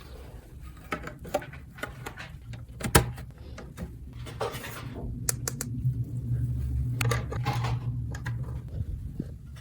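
Small hard plastic toy pieces handled and set down: scattered clicks and light knocks, one sharp knock about three seconds in, with a low hum under the second half.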